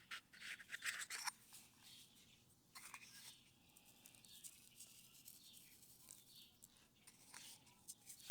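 Near silence with a few faint rustles and light ticks as coffee grounds are sprinkled and rubbed onto a raw ribeye steak on a plastic cutting board.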